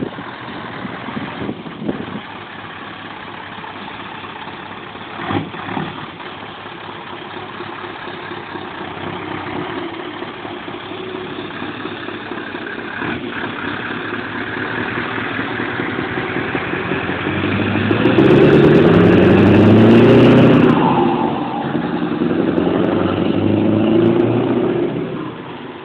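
Scania 164L 580's V8 diesel truck engine running, growing steadily louder. About two thirds of the way in it revs up hard with rising pitch for a few seconds, pulls again more briefly, then falls away sharply near the end.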